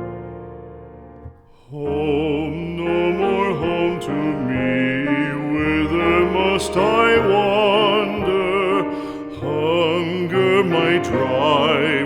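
Background music: a piano chord dies away, then about two seconds in a singer with a strong vibrato comes in over piano accompaniment, in a slow classical art-song style.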